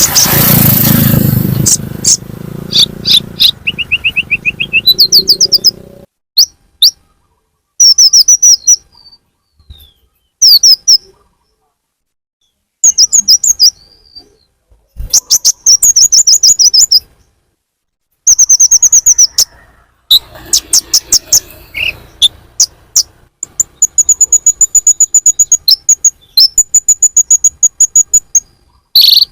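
Kolibri ninja sunbird lure call: rapid, high chirping trills in loud bursts of one to three seconds, broken by short silences. One phrase has a run of notes that dips and then climbs, and near the end a fast series of thin, even notes repeats.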